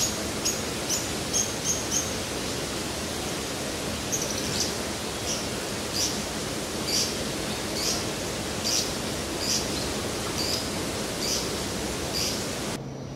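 A bird giving short, high chirps over a steady rushing hiss. The chirps come about two a second at first, then slow to roughly one a second.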